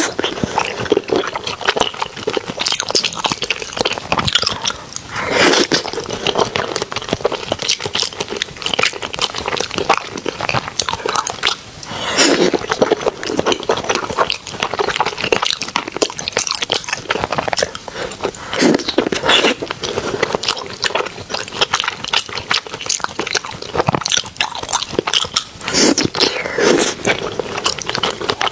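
Close-miked eating: a person biting and chewing food, full of crisp crunches and wet mouth clicks, with louder stretches about every seven seconds.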